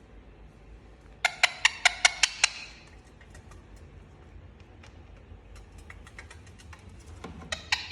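Indian ringneck parakeet giving rapid runs of sharp, high calls, about five a second. One run of about seven calls comes about a second in, and another starts near the end, with faint ticks in between.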